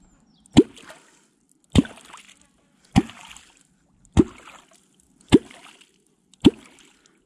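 A kwok, the catfish call, is driven into the river six times at a steady pace, a little over one stroke a second. Each stroke is a low, hollow plop followed by a short splashy gurgle, the sound used to call catfish up to the bait.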